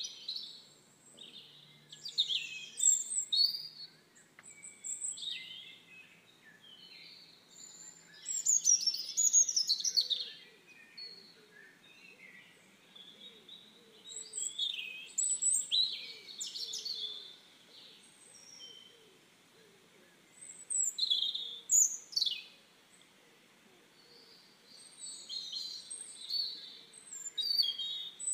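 Birds chirping and singing in short, high calls and trills, several different calls overlapping, coming in clusters with brief quieter gaps between them.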